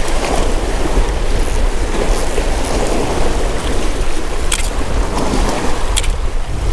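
Wind buffeting the microphone with a steady rumble, over the wash of water on a rocky shore; two sharp clicks sound about four and a half and six seconds in.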